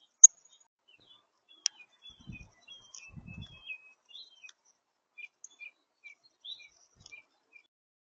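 Small birds chirping at a backyard seed feeder: a run of short, high chirps, with two sharp loud clicks in the first two seconds and a couple of low thumps about two and three seconds in.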